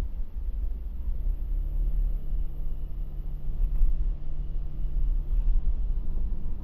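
A vehicle driving along a road: a constant low rumble, with a steady engine hum coming in about a second in and fading out near the end.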